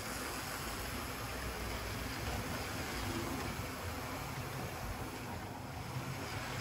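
Model train running on the layout's track: a steady rolling rumble of wheels on the rails and the locomotive's motor, thinning slightly as the train moves away.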